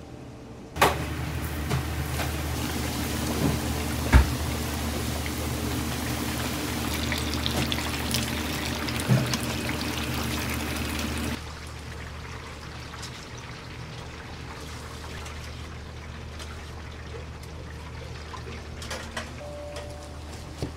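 Water pouring steadily over a low hum, with a few knocks, for about ten seconds, then cutting off suddenly. After it comes a quieter background hum with faint clicks.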